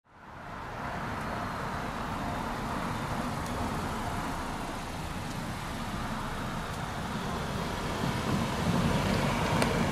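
Steady traffic noise at a railway level crossing, fading in at the start. A low rumble builds over the last couple of seconds as a train approaches.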